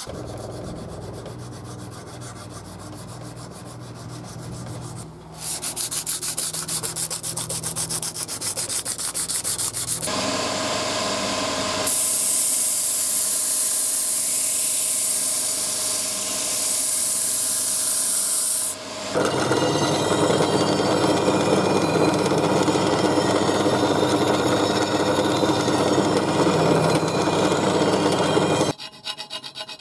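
Abrasive sanding, a steady rubbing that changes character abruptly several times: about 5, 10, 12 and 19 seconds in. A fast, even ticking runs through the first ten seconds, and the sanding stops shortly before the end.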